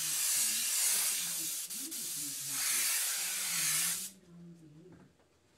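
Airbrush spraying: a steady hiss of compressed air that eases for a moment about two and a half seconds in, then cuts off sharply about four seconds in.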